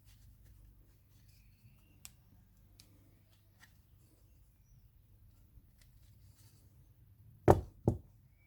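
Faint scattered clicks over a low steady hum, then two loud, short thumps about half a second apart near the end.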